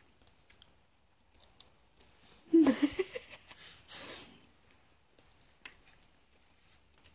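Baby giving a loud, excited squeal about two and a half seconds in, its pitch bending, followed by a few shorter squealing, laughing sounds. Faint small clicks and rustles from the baby moving in the bouncer seat.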